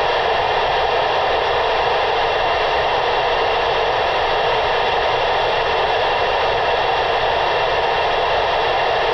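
FM transceiver's speaker giving a steady, loud hiss of static with the squelch open on the 446.0 MHz UHF simplex frequency. No readable signal comes through, and the hiss cuts off abruptly about a second after the end.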